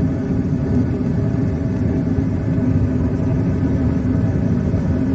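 Gas furnace running after ignition: a steady mechanical hum and rumble from the draft inducer motor and lit burners. The furnace is running smoothly.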